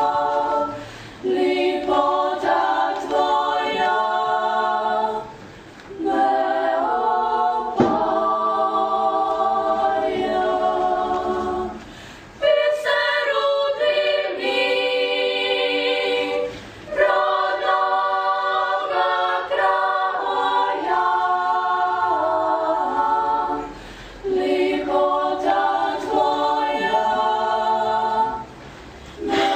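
Women's klapa ensemble singing Dalmatian a cappella in close multipart harmony: long held chords in phrases several seconds long, each broken by a brief pause for breath.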